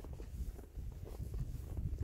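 Wind buffeting the phone's microphone: an uneven, gusty low rumble.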